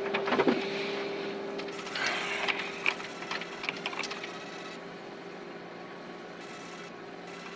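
Key clicks on a computer terminal keyboard as a data request is typed, over a steady electronic hum. The clicks stop about halfway through, leaving the hum alone.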